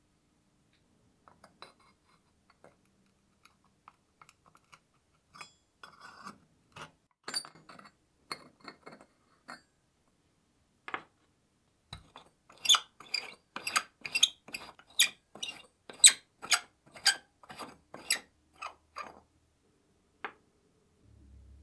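Small metal stove parts, brass and steel fittings, being set down on a wooden workbench: scattered light taps and clicks, then from about halfway a quicker run of sharp metallic clinks, about two a second.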